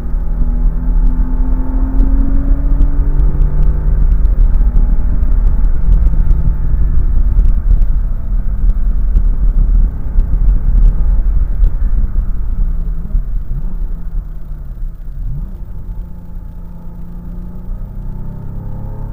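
Car engine at speed on a track, heard from inside the cabin, pulling up through the revs, then dropping in pitch with a few quick dips about two-thirds through as the car slows for a corner. A heavy low rumble runs underneath, and the sound grows quieter near the end.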